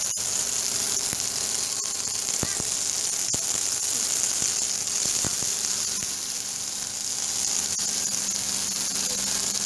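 Mole crabs frying in oil on a flat griddle: a steady sizzle with a few scattered pops of spattering oil.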